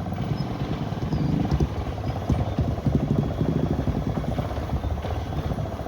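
Motorcycle engine running while riding, a rapid, even firing beat.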